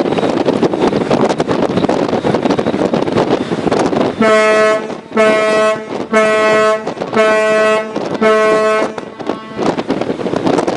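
A ship's whistle sounding five short blasts about a second apart, the danger signal ships give when another vessel's intentions or actions are in doubt. Wind buffets the microphone before and after the blasts.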